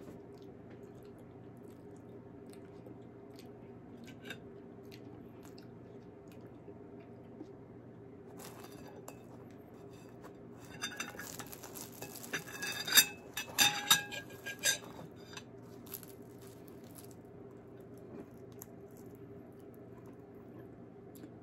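Small clinks and crackles of tableware and food being handled at a table: a bowl, and a croissant being torn and dipped into soup. They come in a run from about eight seconds in and are loudest around thirteen seconds, over a faint steady room hum.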